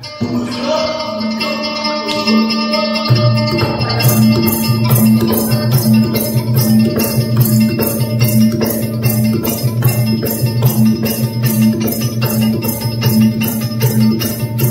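Traditional instrumental accompaniment for a mamanda folk-theatre scene: held melodic tones at first, then from about three seconds in a steady repeating low beat joins, and from about four seconds a regular shaker rhythm of two or three strokes a second.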